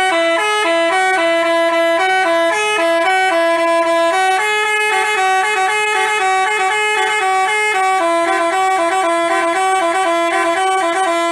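Basuri telolet horn playing a quick multi-note melody, its pitch stepping from note to note. This is the musical horn fitted to Indonesian buses.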